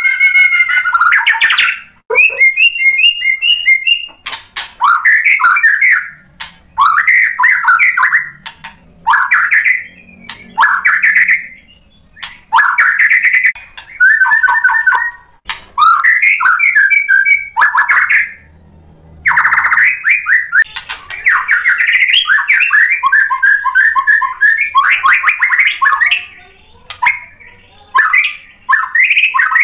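White-rumped shama (murai batu) singing loudly in full song: a string of varied whistled phrases and fast repeated trilled notes, each phrase a second or two long with short breaks between. There is one longer pause about two-thirds of the way through.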